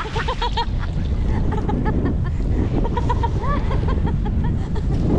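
Wind buffeting the microphone over a boat's engine rumble, with short high-pitched squeaky vocal yelps coming in quick runs.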